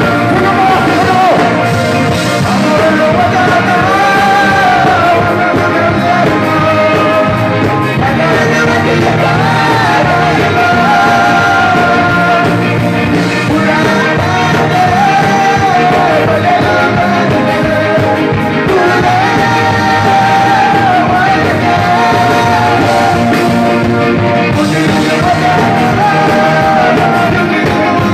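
Live band playing a song with a singer's voice carrying the melody, loud and steady throughout.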